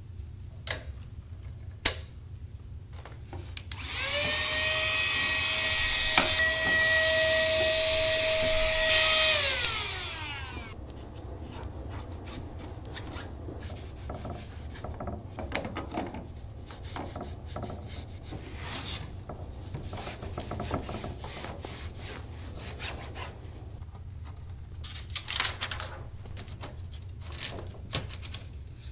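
A microfiber cloth rubs and wipes over a Smith-Corona Silent typewriter and its case, with scattered light clicks and knocks of handling. About four seconds in, a small electric motor starts with a steady whine, runs about six seconds, then winds down; it is the loudest sound.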